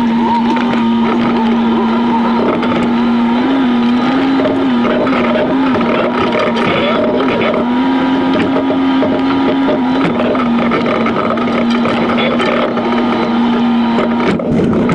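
Jeep engine and drivetrain sound, sped up six times in a time-lapse, giving a steady buzzing drone that wavers slightly in pitch now and then.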